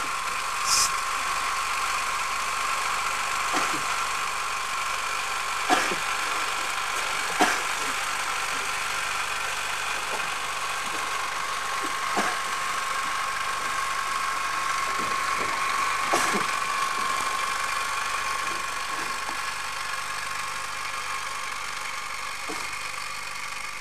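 Steady machinery hum with a constant whine, broken by a few short sharp knocks, the loudest about six and seven and a half seconds in.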